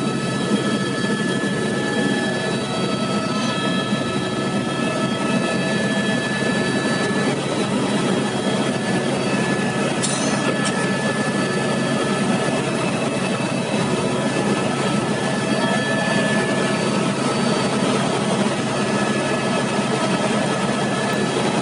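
Helicopter in flight, heard from inside the cabin: a loud, steady engine and rotor drone with several constant whining tones above it.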